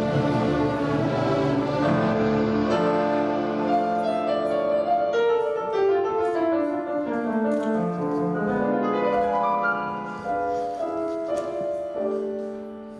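Bechstein grand piano playing a classical piece, with a run of notes stepping downward about halfway through and the playing growing softer near the end.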